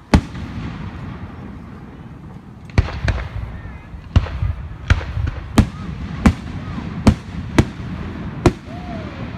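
Aerial fireworks bursting: one sharp bang at the start, then a run of about nine more bangs from about three seconds in, roughly one every second or less, with a low rumble between them.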